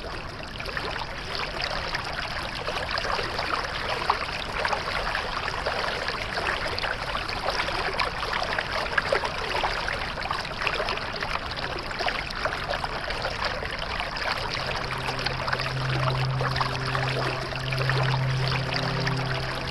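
Water in a small stream running and trickling steadily, with many little splashes and burbles. About three-quarters of the way through, soft music with low held notes comes in under it.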